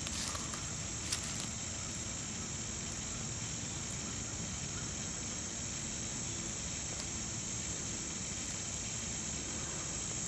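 Steady high-pitched chorus of insects in the grass, unbroken throughout, with a few faint clicks.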